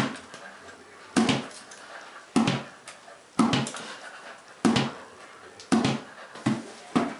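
A ball being bounced about once a second, each sharp hit followed by a few smaller rebounds.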